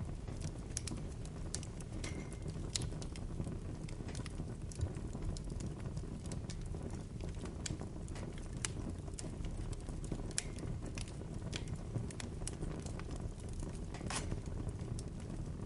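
Bonfire burning: a steady low rumble of flames with sharp, irregular crackles and pops from the burning wood, one louder pop near the end.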